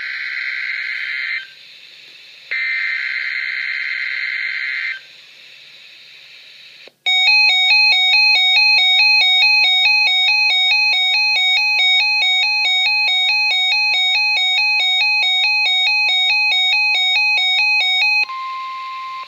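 Emergency Alert System SAME header data bursts, two harsh buzzing bursts, opening a NOAA Weather Radio required weekly test. About seven seconds in, a loud warbling alert alarm starts, stepping back and forth between pitches several times a second, with the steady weather-radio alert tone beneath it. The alarm cuts off near the end, leaving the steady tone.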